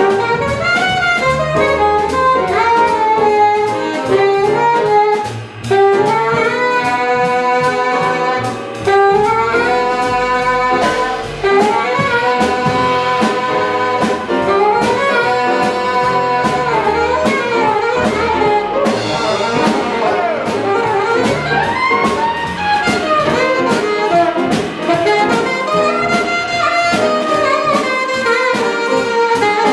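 Live jazz quintet: an alto saxophone solos in quickly moving lines over piano, upright bass and a drum kit.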